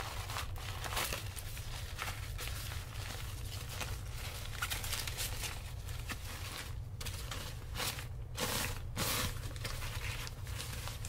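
A thin foldable shopping bag being unfolded and spread out by hand, crinkling and rustling in irregular handling noises. A steady low hum runs underneath.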